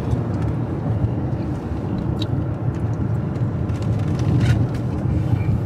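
Steady low road and engine rumble of a car driving along a country road, heard from inside the cabin, with a few light ticks.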